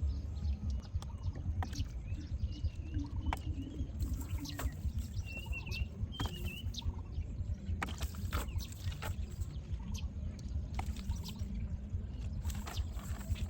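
Water splashing and dripping in a run of short clicks and splashes over a steady low rumble, with a few brief bird chirps.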